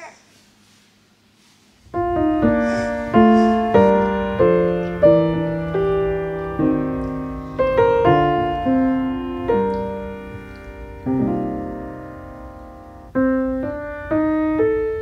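Background piano music that comes in about two seconds in: single struck notes in a slow melody, each ringing out and fading.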